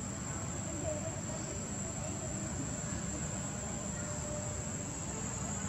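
Steady outdoor ambience: a constant high-pitched insect drone over a low rumble.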